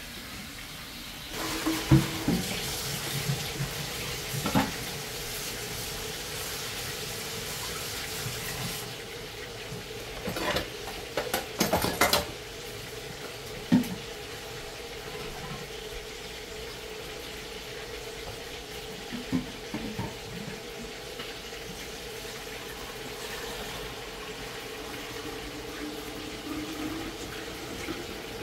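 Kitchen tap running for several seconds as water fills a pot, then shutting off. Clinks and knocks of pots and utensils come through, most of them just after the water stops.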